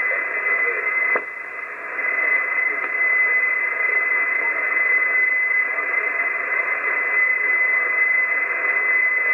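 Hiss and static from an Icom HF transceiver receiving single-sideband on 6516 kHz, with a steady high-pitched whistle. About a second in there is a click, and the noise drops briefly.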